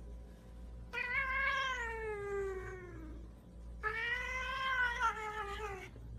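Domestic cat giving two long, drawn-out meows, each about two seconds. The first falls in pitch toward its end; the second rises and then falls.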